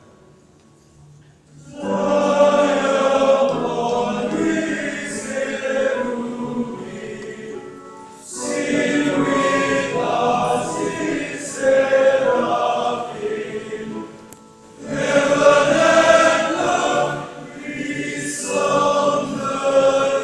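A seminarians' choir singing a hymn, coming in about two seconds in and going on in three long phrases with short breaks between them.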